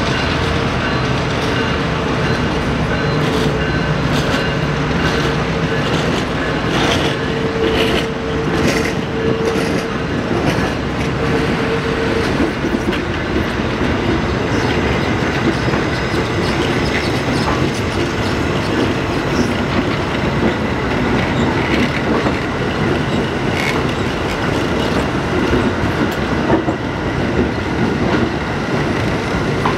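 Budd-built R32 subway cars rolling slowly past in tow on street track, their steel wheels running on the rails with clicks over the joints. A steady whine runs through roughly the first twelve seconds.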